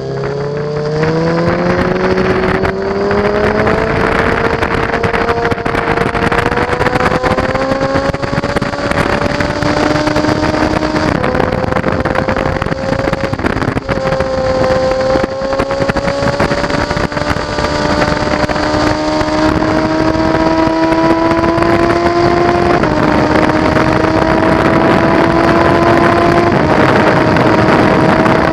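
Inline-four sport bike engine accelerating hard on track, its pitch climbing steadily and dropping slightly at each upshift, about four times. Wind rushes over the bike throughout.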